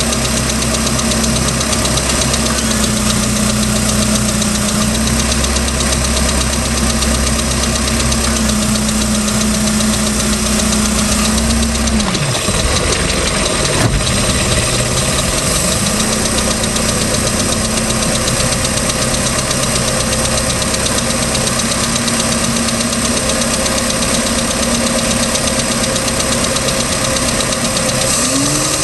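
3.0L MerCruiser four-cylinder marine engine running with a persistent ticking noise that its owner cannot explain. Its running note dips briefly and recovers about halfway through, and rises a little near the end.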